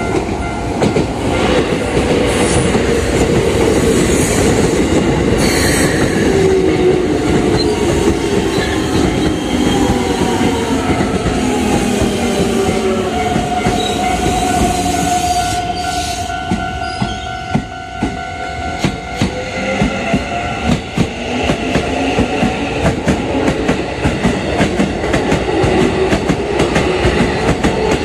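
Keikyu electric commuter trains at a level crossing. A 1500-series train's traction motors whine down in pitch as it slows, with a held squeal from the brakes or wheels midway. Then a new 1000-series train's motor whine rises as it pulls away, and its wheels clack over the rail joints.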